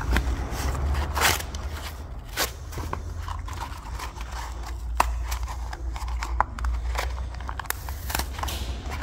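Pleated paper element of a used oil filter being pulled apart and handled with gloved fingers: irregular crackles and scrapes of the stiff oily paper folds, over a steady low rumble.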